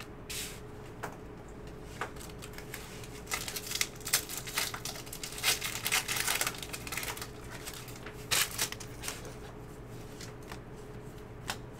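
A foil trading card pack wrapper being crinkled and torn open by hand, with a dense stretch of crackling through the middle and another short burst a little later. Before and after come scattered light clicks of cards being handled.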